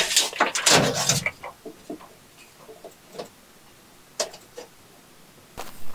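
Tape measure in use: a burst of rattling and clicking from the blade and case in the first second, then a few scattered clicks.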